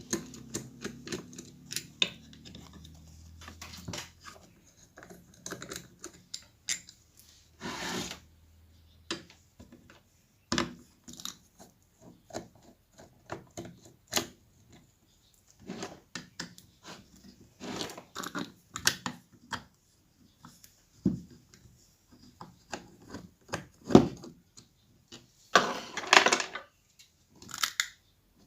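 Irregular clicks, taps and knocks of a screwdriver and metal parts as the screws of a horn compression driver unit are undone and its housing taken apart, with a short scrape about eight seconds in and a longer scraping rub near the end.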